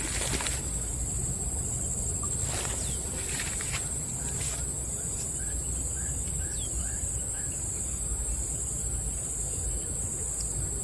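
Steady high-pitched drone of insects such as crickets or cicadas over a low rumble, with a short run of about five chirps in the middle.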